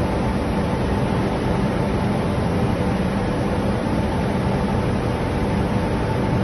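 Steady drone of a running powder coating line: an even rush of fan and air noise with a faint hum, no breaks or knocks.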